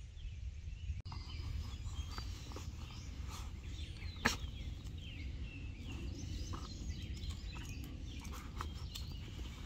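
West Highland terrier nosing and rummaging in a black fabric drawstring bag, making a run of light rustles and small clicks, with one sharp click about four seconds in. Birds chirp in the background over a steady low rumble.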